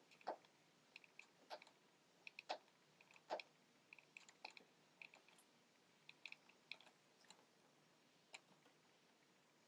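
Faint, irregular small clicks and taps of hands working at tape on a laptop's plastic internals, a dozen or so spread out with near silence between them.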